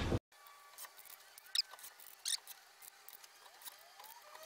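A 20V cordless drill driving a wood screw into a plastic fan frame stops just after the start. Then it is very quiet, with two faint, short, high chirps.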